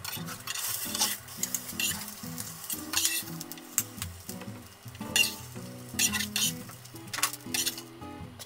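Natto-stuffed fried tofu sizzling in a hot nonstick frying pan. A spatula scrapes and knocks against the pan a few times as the pieces are lifted out. Soft background music plays under it.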